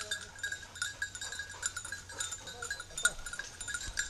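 Small hunting bells on springer spaniels' collars jingling in quick, irregular strikes as the dogs run and search through the undergrowth.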